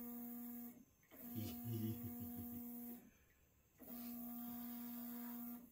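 Stepper motors of a newly assembled Bulk-man 3D Lead 1010 CNC router moving its axes on a first powered test, a steady humming whine in three moves with short pauses between. The middle move has a lower rumble under it.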